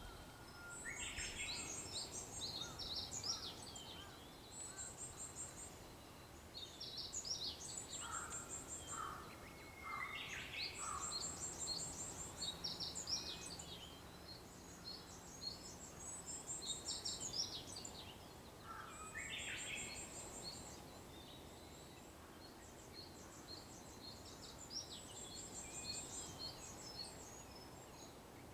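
Several wild songbirds singing in a dawn chorus: short, very high rapid trills recur every few seconds among many quick chirps and a few lower notes, over faint outdoor background noise.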